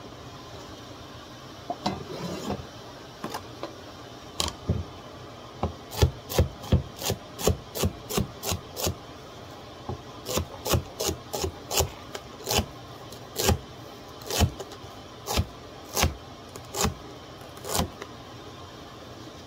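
Chef's knife chopping celery on a plastic cutting board: sharp knocks of the blade striking the board. They come sparsely at first, then in quick runs of about three a second, slowing to about one a second near the end.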